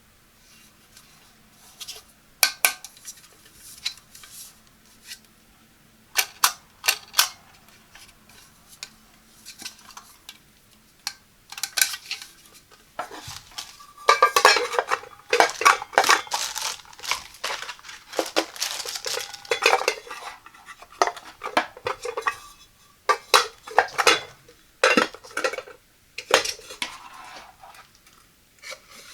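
Parts of a Dash mini rice cooker, its removable nonstick pot among them, being handled: scattered clinks and knocks, with a dense spell of rattling and scraping about halfway through.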